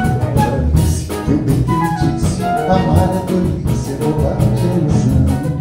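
Live ensemble playing an instrumental passage between sung verses: acoustic guitar, bowed strings (violin, viola, cello) and double bass over a drum kit, with a melodic line carried above a steady beat.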